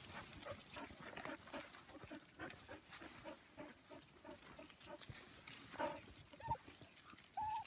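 Puppies making many short, soft sounds in quick succession as they mill about, with a brief whine near the end.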